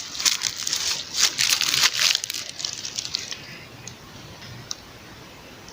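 Crinkling, rustling handling noise with sharp crackles for the first two seconds or so, then it dies away to a faint steady hiss.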